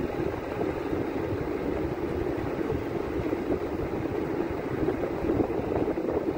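Steady rumble of a vehicle travelling along a road, with an uneven low buffeting.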